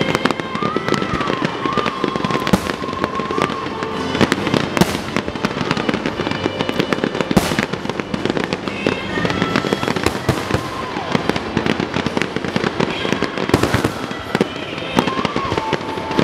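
Aerial fireworks shells bursting with dense, continuous crackling and several sharper bangs, over music playing in the background.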